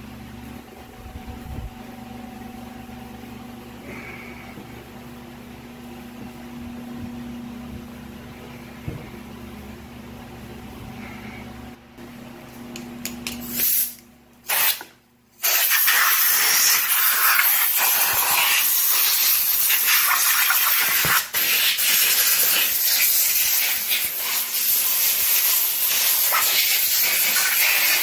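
A faint steady hum, then about halfway through a pressurised cleaning spray hisses loudly onto the scooter engine: two short bursts, then a long continuous blast.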